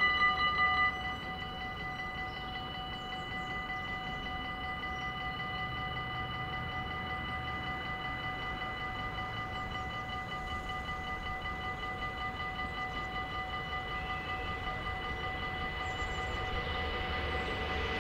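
Dutch level-crossing electronic warning bells ringing rapidly and steadily. About a second in the ringing drops to a softer level as the barriers come fully down, and it keeps going. Near the end the rising rumble of an approaching train starts to build under it.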